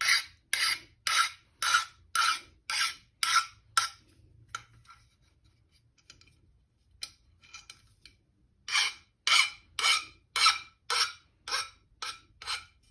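Short rasping strokes of an abrasive drawn along the sharp edge of a metal hand-plane sole, easing the edge. The strokes come about two a second in a run of eight, stop for about five seconds, then another run of eight.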